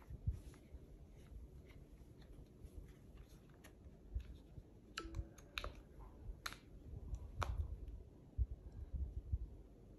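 Faint handling noise with scattered light clicks and taps as an iPhone is pressed into a leather case and its edges are worked into place; the clicks cluster a little past the middle.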